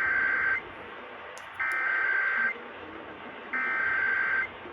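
Emergency Alert System SAME header played over the radio: three harsh, buzzy digital data bursts, each about a second long and about a second apart. This is the coded header that opens an EAS alert and carries its event type and area.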